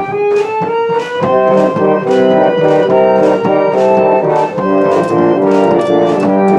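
1800s reed pump organ being played: a rising run of notes in the first second, then full held chords struck one after another.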